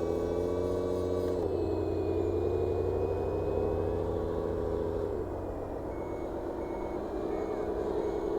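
Engine sound of an RC construction model, a steady droning note that drops in pitch twice. About six seconds in, a reversing beeper starts a steady series of short high beeps.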